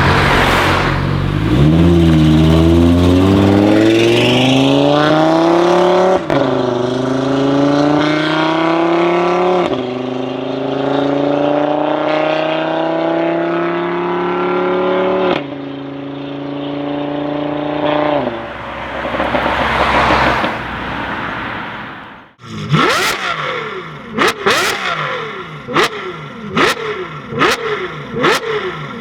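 Audi RS3 8V's turbocharged five-cylinder, with Iroz downpipes, accelerating hard through the gears, the pitch climbing in each gear and dropping at each upshift. After a brief lull, a quick series of revs with sharp exhaust crackles and pops, about one to two a second near the end.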